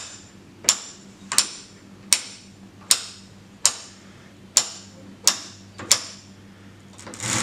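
Ratchet of a hand-crank cable winch clicking once per crank, about every 0.7 s, as it winds up the cable and loads the spring scale. Near the end there is one longer, louder scraping sound as the sandpaper-backed brick gives way and slides: the simulated fault slip.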